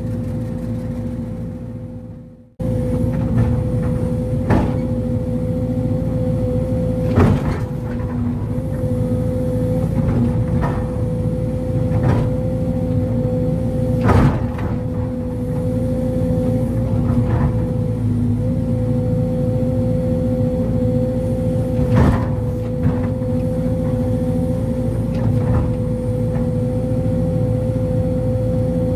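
Sumitomo SH210 excavator's diesel engine running steadily under load, heard from the operator's cab, with a constant whine over the drone. Sharp knocks come every few seconds as the machine works. The sound fades out briefly and cuts back in about two seconds in.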